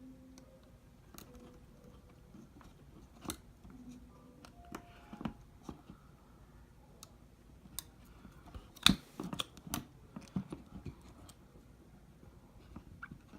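Scattered small clicks and taps of iPhone 6 parts and tools being handled while the screen assembly is fitted to the phone body, with one sharper click about nine seconds in.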